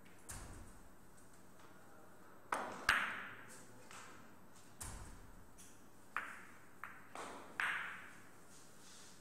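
A cue strike, then carom billiard balls clicking sharply against one another and knocking off the cushions. There are about eight separate clicks with short gaps between them, the loudest about three seconds in.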